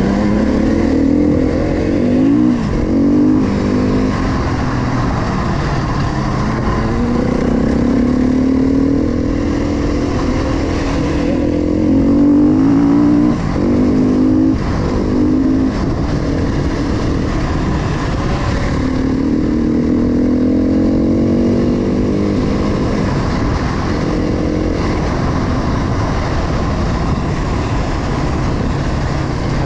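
KTM 350 XC-F four-stroke single-cylinder dirt bike engine under way, climbing in revs and shifting up again and again, and easing off in between.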